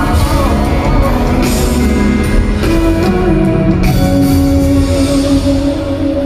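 Live band music at full volume: a band plays an instrumental passage with sustained notes over steady bass and drums.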